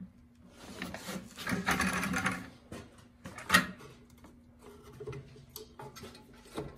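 Hands handling the plastic and metal parts on top of an oil burner's ignition transformer and control box. About two seconds of rubbing and rattling comes first, then one sharp click about three and a half seconds in, then a few small clicks, over a faint steady hum.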